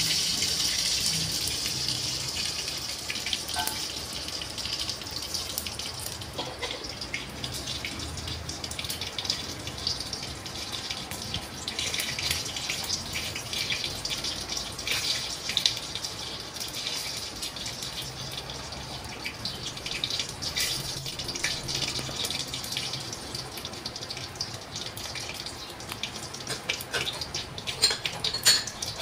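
Spiced chicken in sauce cooking in a covered pan under a glass lid: a steady sizzling hiss with scattered pops and crackles. It is loudest at the start and eases over the first few seconds.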